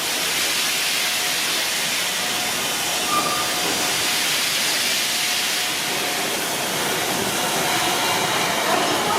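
Steady hiss of escaping steam from Victorian R class 4-6-4 steam locomotive No 766.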